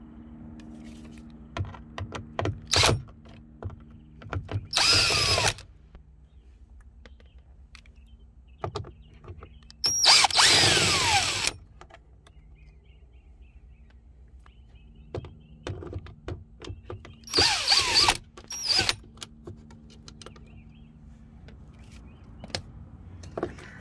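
Power drill-driver spinning out the small Torx screws that hold a truck door speaker, in about five short runs, the longest about a second and a half, with clicks of handling in between.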